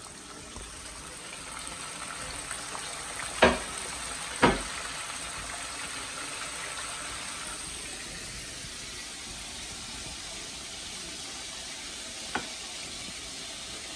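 Flour-coated pork chops frying in a deep pot of hot oil: a steady bubbling sizzle. Two loud sharp knocks about three and a half and four and a half seconds in, and a fainter one near the end.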